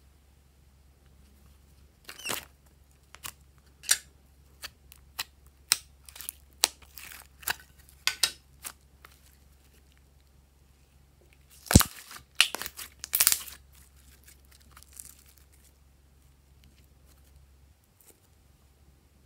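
A plastic slime tub being opened and handled, and sticky glossy slime pulled out of it: a run of sharp clicks and crackles. The loudest is a single snap about twelve seconds in, with a patch of crackling just after it.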